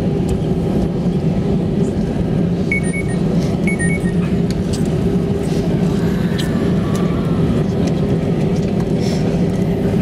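Airbus A319 cabin noise during the landing roll-out: a steady loud engine and runway rumble. A high-then-lower two-tone cabin chime sounds twice in quick succession about three seconds in.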